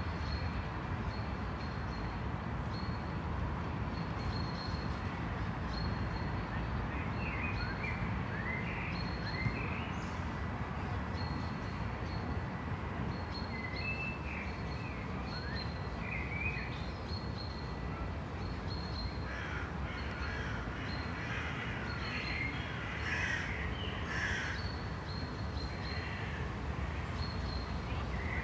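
Steady low rumble of distant city traffic with birds calling over it: a short high note repeating every second or so, and scattered calls that gather into a busy run of harsher calls about two-thirds of the way through.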